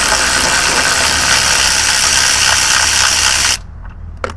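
A power wrench running steadily as it backs out one of the fuse box's mounting bolts, then cutting off suddenly about three and a half seconds in.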